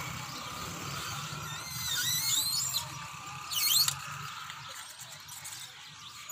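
Birds chirping in short, high, squeaky calls, with a louder burst about three and a half seconds in, over a faint steady low hum.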